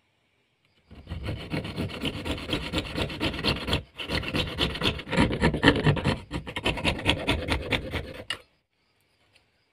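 Fretsaw cutting a small piece of PVC plastic by hand, with quick rasping strokes. The sawing starts about a second in, breaks off briefly near four seconds, and stops over a second before the end.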